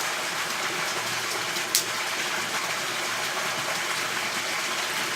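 Steady rushing noise with one sharp click a little under two seconds in.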